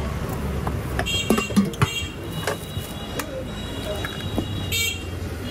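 Batter being poured and spread on a hot jianbing griddle: several clicks and knocks of the spreader and scoop against the metal griddle about a second in, over a steady low rumble.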